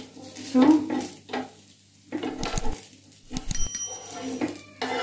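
A metal spatula scraping in short strokes under the edge of a dosa on a hot pan, loosening it for turning, with oil sizzling faintly underneath.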